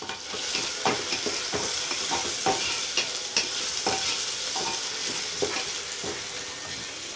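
Onions and thinly sliced carrot sizzling in oil in a pressure cooker pot while being stirred, the spoon clicking against the pot about twice a second.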